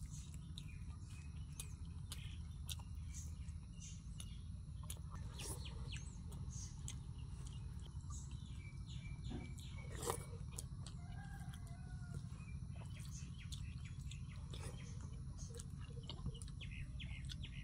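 Chickens clucking and small birds chirping faintly over a steady low hum, with scattered soft clicks and rustles from a hand mixing rice on a banana leaf.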